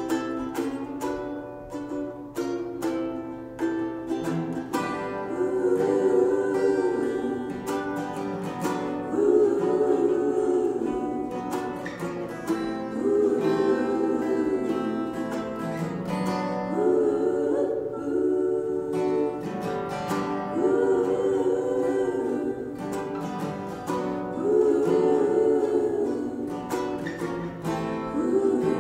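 An acoustic folk song: acoustic guitar and ukulele picking a steady pattern, with a woman's voice coming in about five seconds in and singing long held phrases.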